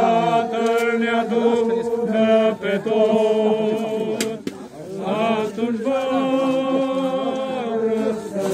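A group of voices singing a slow Romanian hymn in long, held notes, with a brief break about halfway through.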